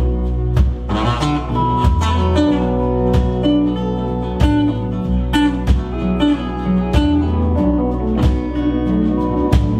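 Live folk-rock band playing an instrumental passage: strummed acoustic guitar, electric guitar, Weissenborn lap slide guitar, bass, keyboard and drums, over a steady drum beat.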